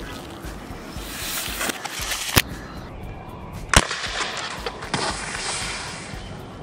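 Two shots from a Dan Wesson 715 .177 CO2 pellet revolver, about a second and a half apart, each a sharp crack; the second is the louder.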